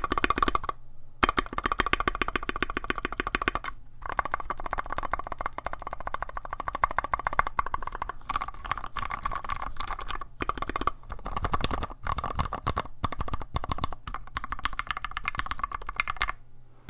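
Fast typing on a Tofu60 mechanical keyboard with Gateron Red Ink linear switches and OSA-profile keycaps, its case lined with foam: a dense, continuous run of keystroke clacks, with brief pauses about a second in and near four seconds.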